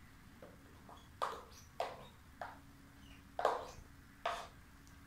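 A spatula knocking and scraping against a plastic cup and bowl as shaving foam is scooped out. There are about five short knocks, roughly a second apart.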